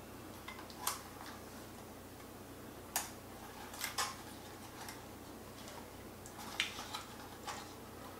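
Several light plastic clicks, irregularly spaced, the sharpest about three seconds in and again about two-thirds through, as the folding arms of a DJI Mavic Mini drone are swung open and set into position by hand.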